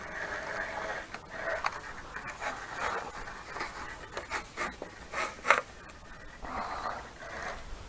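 A person breathing hard close to the microphone in short gusts, with a few rubbing and clicking handling noises; the sharpest click comes about five and a half seconds in.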